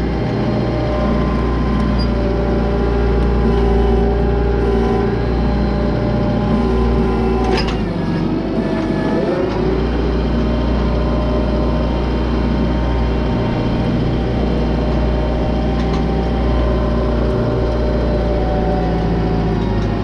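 Kubota M6060 tractor's four-cylinder diesel engine running steadily while the tractor works a rear grading blade. About seven and a half seconds in there is a single sharp clank, and the engine note shifts briefly just after before settling again.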